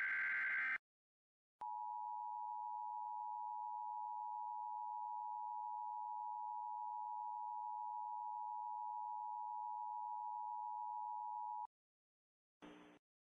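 Emergency Alert System signalling: the last of the SAME header data bursts, a harsh digital screech, ends within the first second. About a second later the EAS two-tone attention signal, a steady pair of close pitches just under 1 kHz, sounds for about ten seconds and then cuts off.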